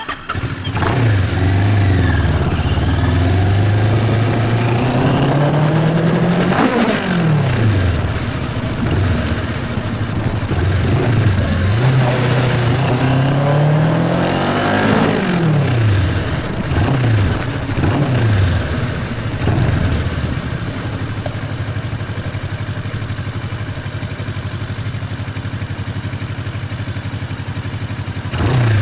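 Kawasaki Ninja 650R's parallel-twin motorcycle engine under way. It climbs in pitch for several seconds and drops sharply at about 7 s, then climbs again and drops at about 15 s. A few quick rises and falls follow, and it runs steadily from about 20 s on.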